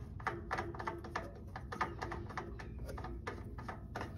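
Light clicks and taps, about three a second, each with a brief ring, as a mower engine's oil filter is spun loose by hand.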